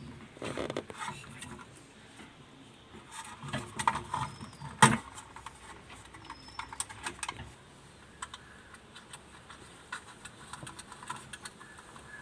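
Scattered light clicks and rattles of small metal parts being handled while a replacement refrigerator thermostat and its pin connectors are fitted, with one sharper click about five seconds in.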